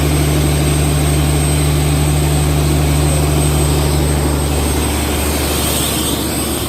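Fishing boat's engine running steadily with a low drone; one of its tones drops away about two-thirds of the way through.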